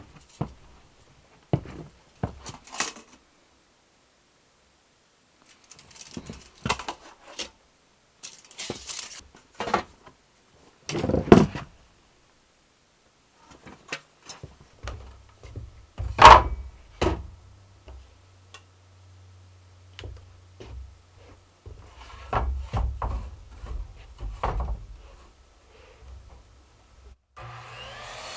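Irregular knocks, clunks and small rattles of clamps, tools and wood being handled, with two louder thuds in the middle. Near the end a steady rasping noise begins.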